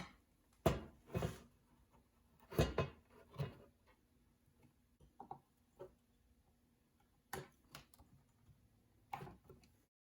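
A handful of separate knocks and clunks of things being handled, about six over ten seconds, with pauses between them; the sound cuts off just before the end.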